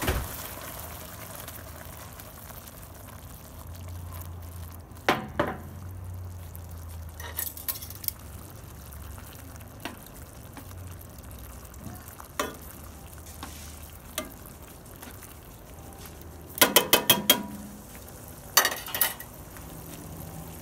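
A spoon stirring a simmering chicken curry in a pan, knocking and scraping against the pan now and then, with a quick run of about six taps near the end, over the steady hiss of the bubbling sauce.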